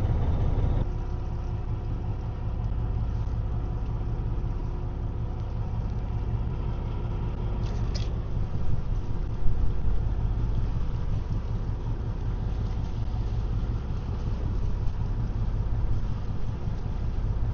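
Fishing boat's engine running with a steady low rumble, and a brief knock about eight seconds in.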